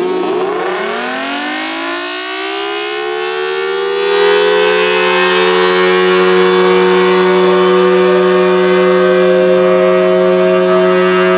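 Federal Signal Thunderbolt 1000T 5/6 outdoor warning siren winding up: its two-tone chord rises in pitch over about four seconds, gets louder, then holds as a steady alert tone over a steady low hum.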